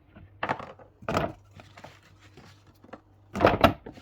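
Several knocks and clatters of things being handled and set down in a small room, the loudest pair near the end, over a faint steady low hum.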